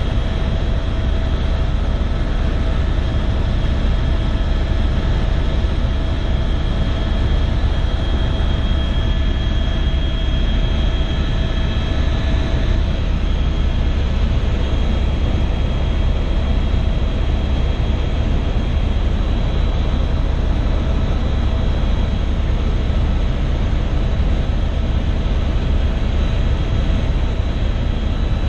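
Helicopter in flight heard from inside the cabin: loud, steady rotor and engine noise with a deep rumble and a high steady whine.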